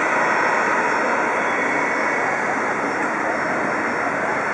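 Jet airliner engines running steadily at taxi power: an even rushing noise with no change in pitch.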